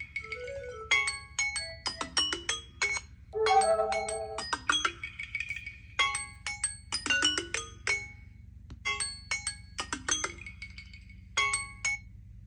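Smartphone ringtone or alarm tone: a melody of quick, short struck notes repeated in phrases, stopping shortly before the end, over a faint steady low hum.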